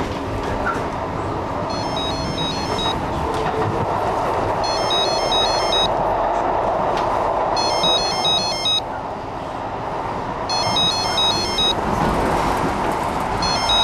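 Steady running noise of a passenger train, heard from inside the carriage. Short snatches of tinny, high-pitched music recur about every three seconds over it.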